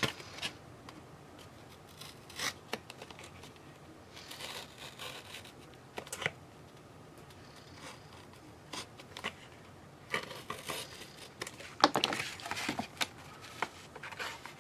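Trading cards and their packaging being handled: scattered short rustles, slides and scrapes of card and wrapper, with a busier cluster near the end.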